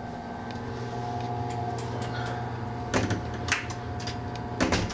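Steady mechanical hum inside a railroad passenger car, holding several steady tones, with a few sharp clicks and knocks in the last two seconds.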